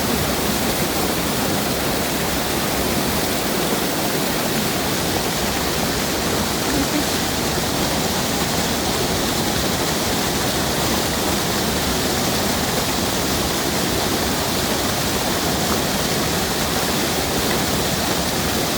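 Waterfall spilling over a mill dam: a steady, even rush of falling water.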